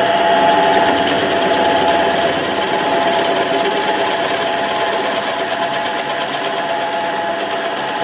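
A power tool running with a rapid, even rattle.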